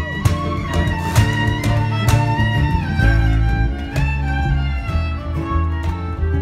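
Live string band playing an instrumental passage: a fiddle carries a gliding melody over a strummed acoustic guitar.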